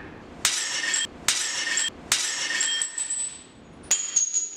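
Slip-cast porcelain breaking and clinking: three sharp crashes about a second apart, each followed by a short bright ring, then a quick cluster of smaller clinks near the end.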